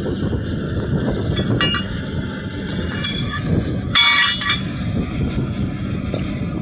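A steady mechanical rumble with a low hum, with a few short metallic clinks, the loudest about four seconds in.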